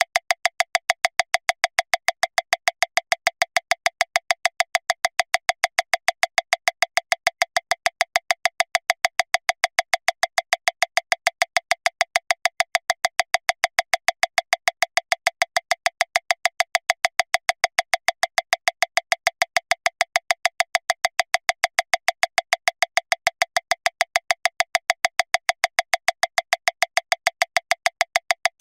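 Metronome clicking at 405 beats per minute, a fast, steady run of about seven identical clicks a second.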